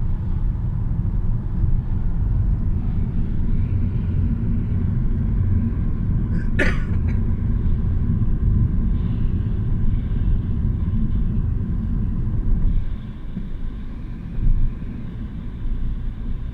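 Low, steady rumble of a car heard from inside the cabin, easing off about thirteen seconds in, with one brief sharp click about six and a half seconds in.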